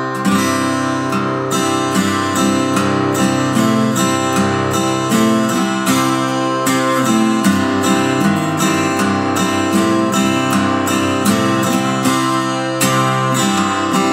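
Solo acoustic guitar picked fingerstyle: steady, regularly repeating bass notes under a plucked melody, playing as background music.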